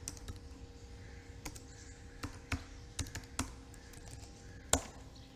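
Computer keyboard being typed on: a dozen or so separate keystrokes at an uneven pace, with one sharper, louder key strike near the end.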